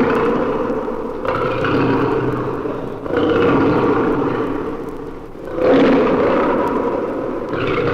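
An animal giving a series of long, pitched calls, each about two seconds, one after another, recorded at a zoo.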